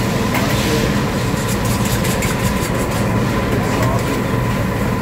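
Steady low rumble of a busy restaurant's room noise, with light clinks and clatter of dishes and utensils scattered through it.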